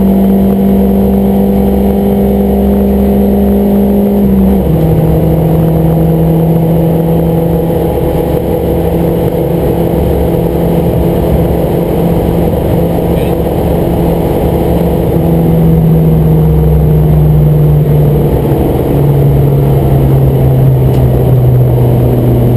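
Car engine under load heard from inside the cabin, with steady road and wind noise. The engine note holds a steady pitch, drops suddenly about five seconds in, and drops again near the end.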